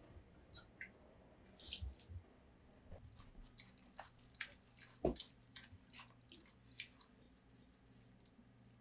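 Rubber-gloved hands scattering wet minced salted shrimp over a tub of raw green onions: soft wet squishes and small drips with scattered light ticks, and one sharper knock about five seconds in.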